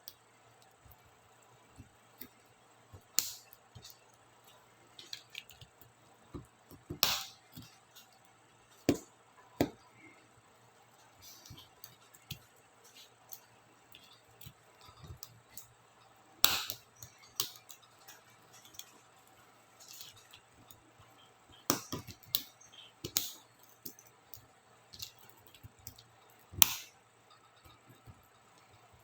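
Small plastic clicks and snaps at irregular intervals as laptop keycaps and their scissor clips are pried off a keyboard, a sharp snap every few seconds with fainter ticks between.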